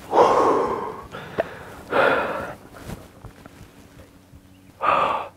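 A man breathing hard in three loud, heavy exhales about two seconds apart, the excited release right after shooting a deer.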